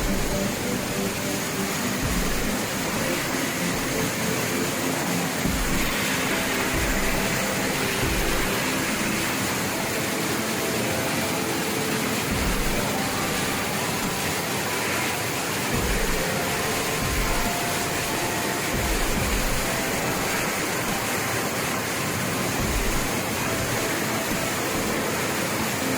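Steady rushing roar of a waterfall, an even, unbroken wash of falling water.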